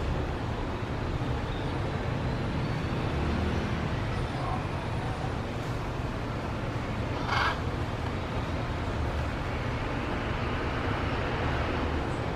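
Steady rumble of road traffic, with one short, higher sound about seven seconds in.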